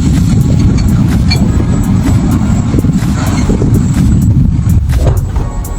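Diesel engines of two excavators rumbling heavily during building demolition, with scattered knocks and crunches of breaking concrete and debris.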